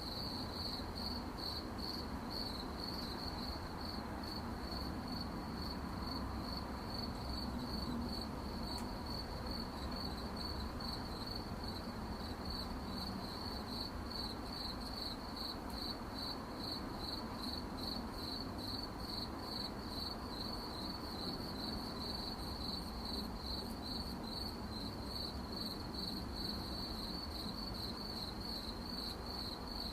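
Crickets chirping in a continuous, rapidly pulsing high trill, over a faint low background hum.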